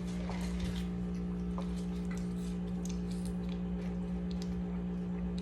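A steady low electrical hum with a few faint, light clicks and ticks scattered over it.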